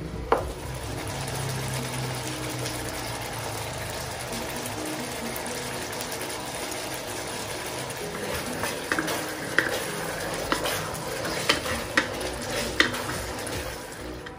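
Chicken and fish balls sizzling in sauce in a non-stick wok, with a wooden spatula stirring and knocking against the pan. A sharp knock comes just after the start, then steady sizzling, then a run of several knocks in the second half.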